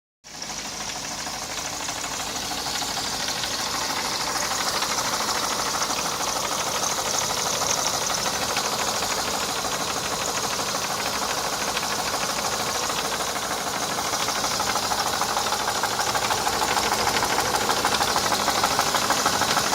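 Mercedes-Benz M102 2.3-litre four-cylinder petrol engine of a 1990 W124 E230 running with a rapid, steady knock, a little louder after the first few seconds.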